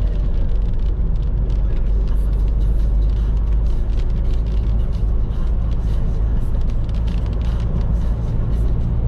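A moving vehicle's road and engine noise: a steady low rumble.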